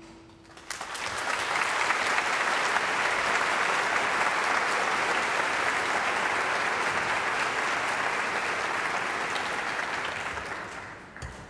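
Audience applause: it starts about half a second in, just as the last low chord of the double basses dies away, holds steady, and fades out near the end.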